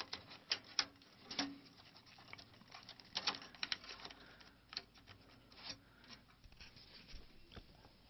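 Irregular small clicks, taps and plastic rattles of drive cable connectors being handled and pushed onto a hard drive inside a desktop computer case.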